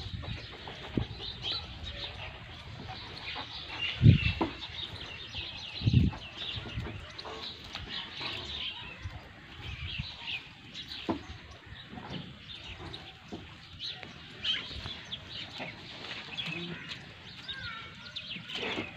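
Small birds chirping on and off in the background, with two dull thumps about four and six seconds in.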